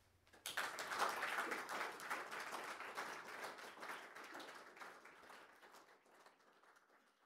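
Audience applauding at the end of a talk, starting about half a second in and slowly dying away over the last couple of seconds.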